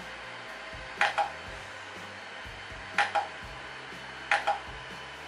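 DewySkin Duke IPL hair-removal handset flashing repeatedly: three short double clicks, about one and a half to two seconds apart, over the steady hum of the device running.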